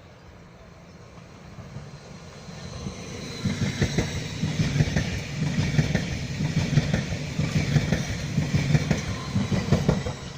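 A train running past on the track, approaching and growing louder over the first few seconds, then a steady rumble with rapid wheel clatter over the rails, easing off near the end.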